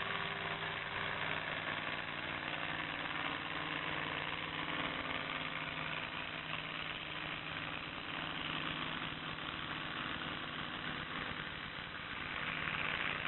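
Modified tractor-pulling tractor's engine running steadily at a low, even speed, with no revving up or down.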